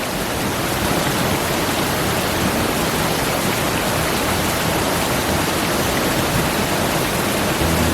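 Hot-spring water rushing and splashing in a steady, loud hiss, from the Kawarage Oyutaki hot waterfall and its stream. Acoustic guitar music comes in at the very end.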